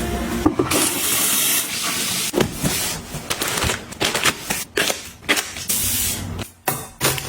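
A rush of liquid lasting about a second and a half, then a series of sharp clicks and knocks as containers and lids are handled, with a shorter rush near the end.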